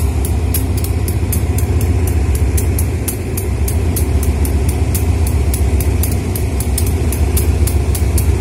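GEA diesel-electric locomotive's engine running at low revs as the locomotive creeps in to couple onto a coach: a steady low rumble with a rapid, even high ticking, about five ticks a second.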